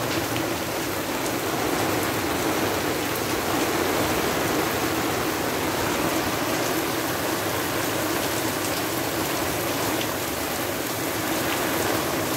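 Heavy rain falling steadily in a downpour onto a garden's gravel, paving and lawn.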